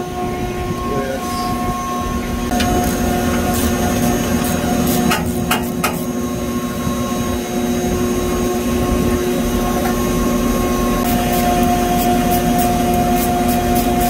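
Steady mechanical hum with several fixed tones, overlaid by light clicks and clinks of metal parts and hand tools being handled, in a cluster from about two to six seconds in and again over the last few seconds.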